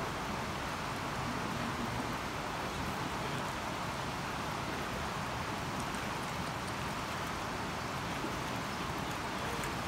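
Steady rushing of a creek's flowing water, an even hiss that doesn't change.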